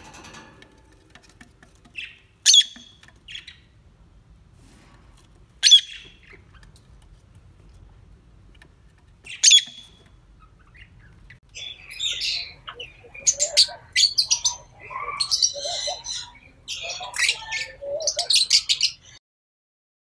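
Peach-faced lovebirds calling: three loud, sharp single shrieks a few seconds apart, then from about halfway a busy run of rapid chirps and chattering that stops shortly before the end.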